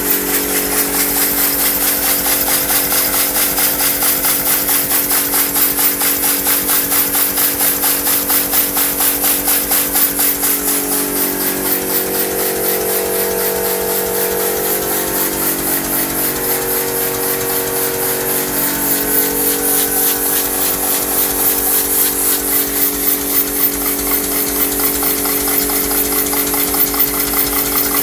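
Homemade steam engine running fast on compressed air at about 8 bar, with a rapid, even chuffing of exhaust and air hiss as it spins a bicycle wheel used as a flywheel. A steady humming tone dips in pitch about halfway through and then comes back up.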